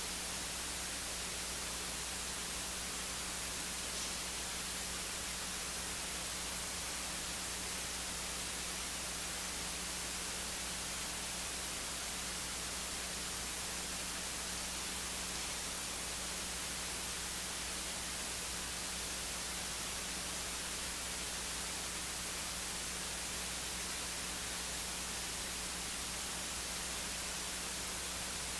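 Steady hiss with a low electrical hum underneath, the noise floor of the livestream's audio feed during a silent pause; a faint tick about four seconds in.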